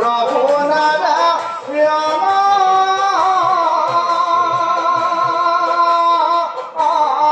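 A man sings a slow melody through loudspeakers, holding long notes that bend and slide, with faint drum beats underneath.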